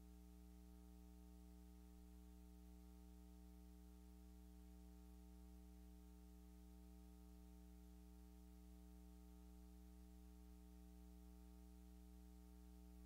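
Near silence: a faint, steady electrical hum, unchanging throughout.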